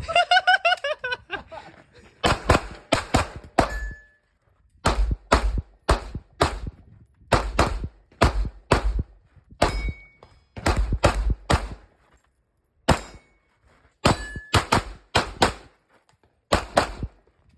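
A shot timer's start beep, then a pistol fired in quick strings of two to five shots, with short pauses between strings, through a timed practical-shooting stage run. A few brief ringing tones follow some of the shots.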